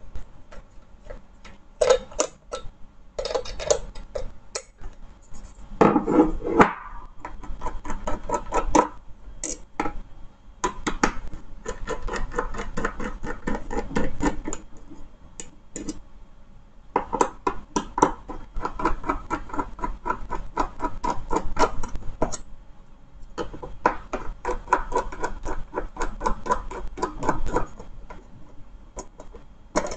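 A screwdriver prying open the metal casing of a Land Rover airbag control module. It gives rapid scraping, clicking and rattling in several spells of a few seconds each.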